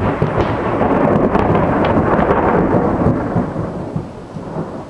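A loud peal of thunder that swells within about half a second, rumbles deep and crackling for about three seconds, then fades away near the end, over steady rain.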